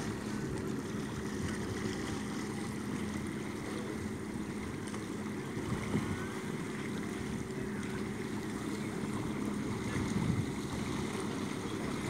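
Steady wind buffeting a phone microphone at the shoreline, with small waves lapping at the water's edge and a couple of brief soft bumps.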